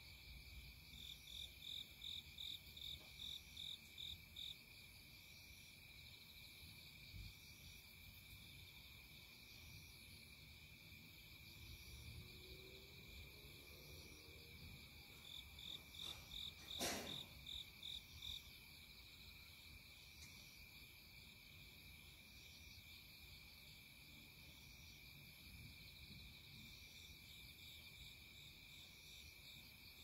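Faint insects, with a steady high-pitched trill and two runs of pulsed chirps at about three a second, one near the start and one about halfway through. A single sharp click sounds about seventeen seconds in.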